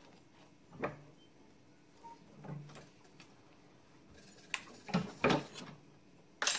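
Scattered knocks and clanks of metal parts being handled at a bench vise as a plate is clamped and released, loudest about five seconds in, with a sharp click near the end.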